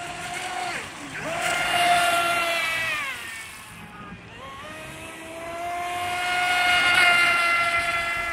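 Joysway Bullet RC speedboat's water-cooled 2815 1900KV brushless outrunner motor whining at high throttle on a 4S LiPo, a high-pitched stack of tones. The pitch drops sharply about a second in and winds back up, eases off around three seconds, then rises again and holds high. It is loudest about two and seven seconds in.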